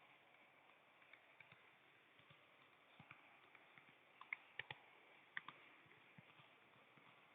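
Faint scattered clicks from a model train's wheels running over the rail joints, several coming in quick pairs, over a quiet hiss.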